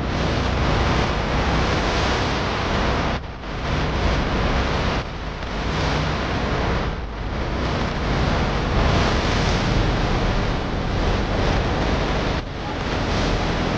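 Steady rushing noise from inside a moving car in rain: tyres on the wet road and rain on the car body, briefly dropping a few times.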